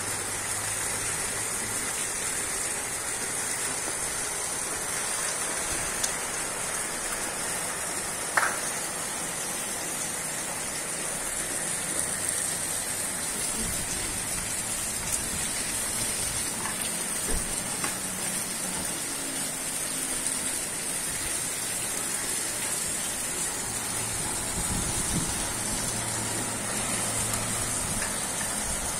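Steady heavy rain falling on a flooded street and rooftops, with a few short sharp taps standing out.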